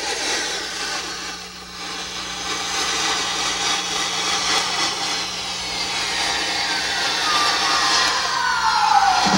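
A match flaring and a lit fuse fizzing as it burns. Over the last few seconds a whistle falls steadily in pitch, ending in a sudden low hit.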